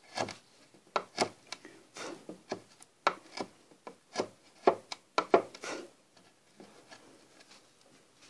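Wood chisel pushed by hand, paring into a board: a run of short, sharp slicing cuts, about a dozen over the first six seconds, then the cutting stops.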